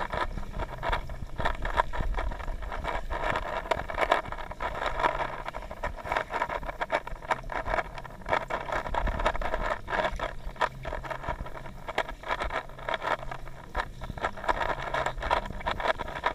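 Underwater ambience picked up by a camera submerged in a swimming pool: a steady muffled hiss and rumble with a low hum and frequent irregular clicks and ticks.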